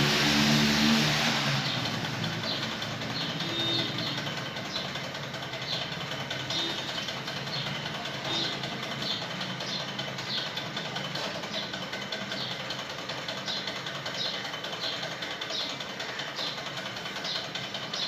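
A motor vehicle engine passes, fading out over the first two seconds. Then small birds chirp in short, high, repeated calls over a steady background hum.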